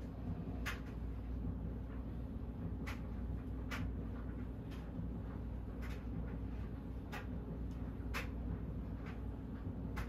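Banvil/Envirofan Silver Line industrial ceiling fan turning, with a steady low hum and a light click about once a second.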